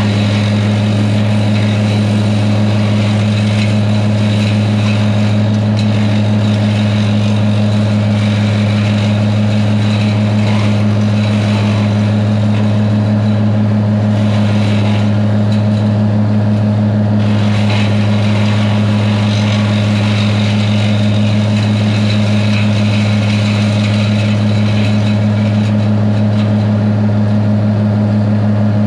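A farm machine's engine running at a steady, unchanging speed, a constant low hum.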